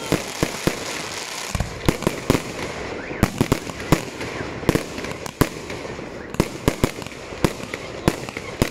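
Fireworks display: aerial shells bursting in a rapid, irregular series of sharp bangs, several a second, over a steady background of noise between the bangs.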